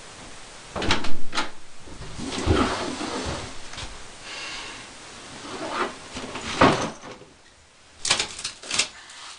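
An interior door swung open, with sharp clicks and knocks about a second in. Footsteps and rustling follow, and two more quick knocks come near the end.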